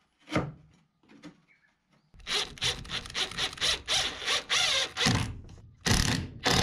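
Green Makita 18V cordless impact driver driving a screw into a pine door-frame crosspiece. It runs in one rattling stretch of about three seconds, then in three short bursts. Just before, the timber gives a light knock as it is set in place.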